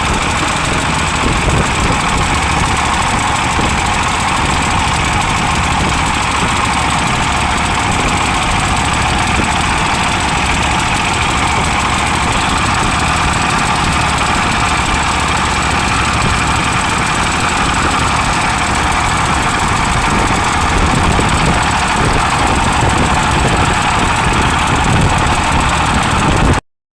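A vehicle engine running steadily while on the move, under a loud, steady rush of strong wind on the microphone. It cuts off abruptly just before the end.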